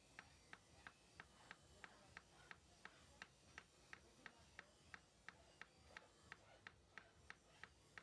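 Near silence with faint, evenly spaced ticking, about three ticks a second.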